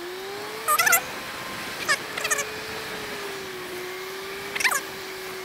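Suzuki Bandit motorcycle engine running with a steady note that rises in the first second and then holds, under a haze of wind and wet-road noise. Short high squeaks cut in over it about a second in, around two seconds and again near five seconds.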